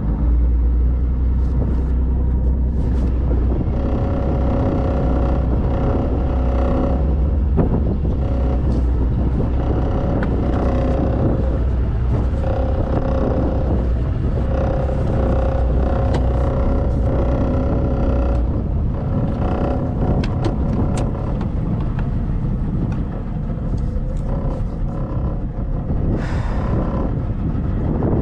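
Motorboat engine running steadily underway, with a held humming tone over a deep rumble; the deepest part of the rumble falls away about two-thirds of the way through.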